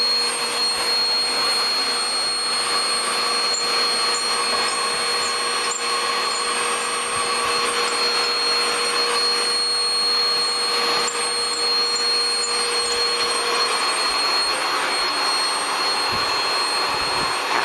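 Vacuum cleaner running steadily, with a thin high whine over its rushing noise.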